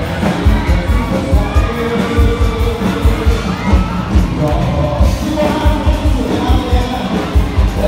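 Live band music over loudspeakers: a steady drum beat under singing, with crowd noise from the audience of students.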